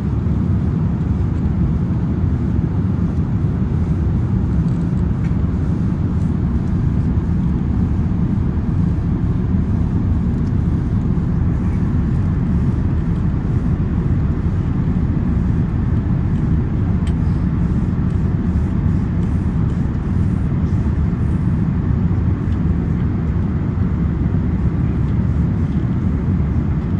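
Steady low rumble inside the cabin of an Airbus A380-861, from its four Engine Alliance GP7200 engines and the airflow past the fuselage.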